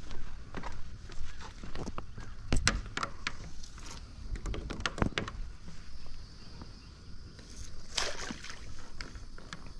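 Scattered knocks and clatter from crab-net gear being handled, the loudest around two and a half to three seconds in and again at five seconds, with a brief rushing noise about eight seconds in.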